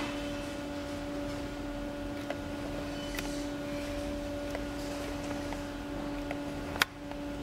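Steady low hum with a fainter overtone from the running UV printer, with one sharp click near the end.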